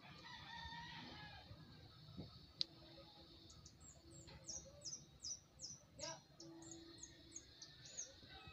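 Faint rooster crowing near the start, then a small bird giving a quick run of short, high, falling chirps, about three a second, through the second half. One sharp click sounds about two and a half seconds in.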